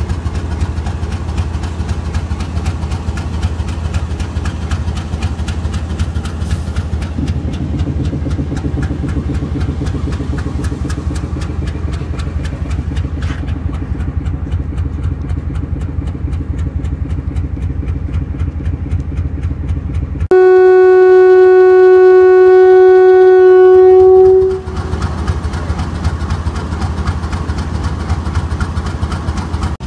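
RGE-20 diesel-electric locomotive idling with a steady low throb. About two-thirds of the way through, a locomotive horn sounds one long, steady single-note blast of about four seconds, the loudest sound, before the idle is heard again.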